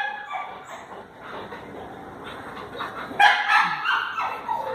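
A dog giving a short run of high, pitched yips about three seconds in, after a few quieter seconds.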